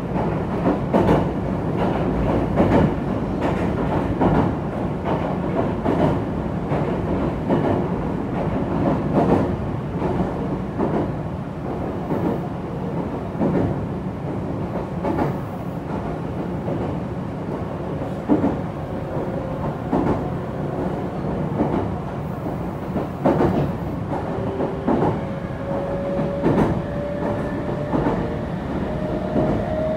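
Meitetsu 3500 series electric train running at speed, heard from inside the car: a steady rumble with the wheels clattering over rail joints every second or two. A faint whine rises in pitch over the last few seconds.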